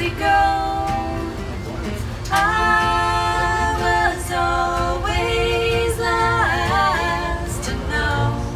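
Two women singing, with long held notes, to two strummed acoustic guitars.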